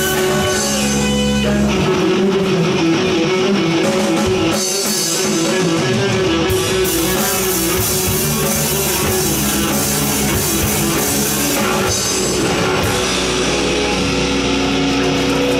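Live rock band playing an instrumental passage: electric guitars playing a repeating riff over bass guitar and drum kit.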